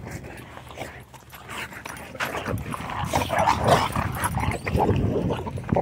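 Several dogs in a rough scuffle, barking, getting busier and louder from about two seconds in.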